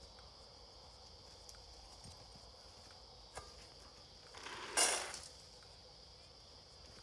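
Insects trilling steadily in the dark, with a few faint footstep-like clicks and one short, loud rustling-scraping burst about five seconds in.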